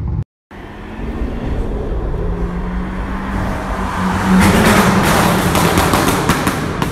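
Vauxhall Corsa VXR's turbocharged four-cylinder with a loud exhaust driving toward and past. The engine note climbs as it nears and is loudest about four and a half seconds in. A run of exhaust pops and crackles follows as it goes by.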